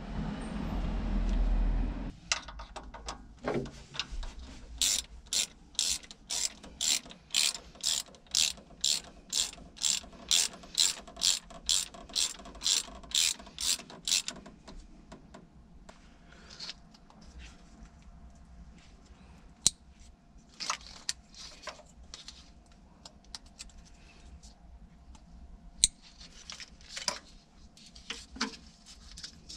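A low rumble for the first two seconds, then a socket ratchet wrench clicking in a run of about twenty even strokes, roughly two a second, turning a bolt. After that come scattered light clicks and knocks of tools.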